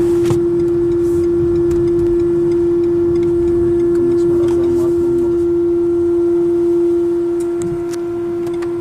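Loud, steady buzzing hum at one fixed pitch with fainter overtones, coming from the rear speakers of a Renault Kadjar's R-Link 2.0 multimedia system: a fault in the head unit that persists with the engine off and clears only when the unit is restarted. A low rumble of the car runs beneath it inside the cabin.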